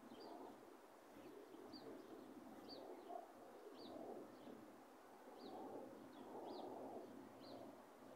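Faint birdsong: a small bird repeats a short high chirp roughly once a second, over soft low cooing of a dove.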